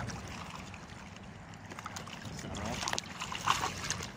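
Lake water sloshing and lapping around a person wading chest-deep, with a few sharper splashes in the last second and a half.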